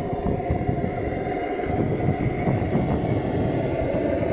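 Lanz Bulldog tractor's single-cylinder hot-bulb two-stroke engine running, with a steady, uneven low thudding.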